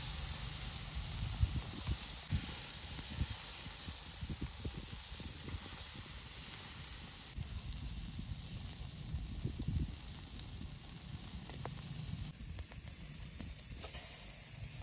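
Seasoned shrimp sizzling on a barbecue grill, a steady hiss.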